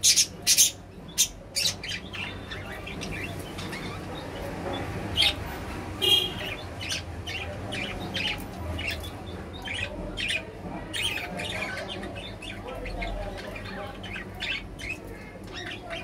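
Budgerigars chirping and chattering: many short, high chirps, with a quick run of several loud ones in the first two seconds.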